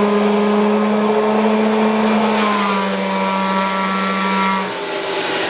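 A go-kart's two-stroke engine running at steady high revs with a high, even buzz. Near the end the note drops away as it comes off the throttle.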